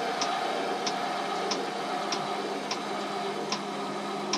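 Electric trailer tongue jack running as it lowers the trailer tongue onto the weight-distributing hitch: a steady motor hum with a sharp tick about every two-thirds of a second.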